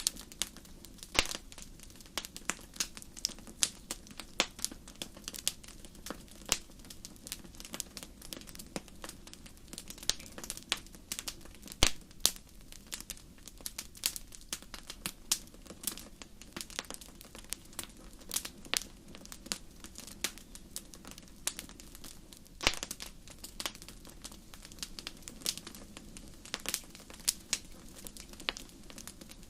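Fire crackling in a fireplace: frequent sharp pops and snaps of varying loudness over a steady low rumble of the flames, with a few louder snaps, the loudest about twelve seconds in.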